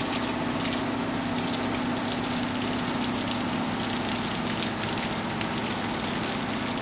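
Water from a garden hose running over lionfish fillets held in a hand and splashing onto wet wooden deck boards, a steady continuous splash. A steady low hum runs underneath.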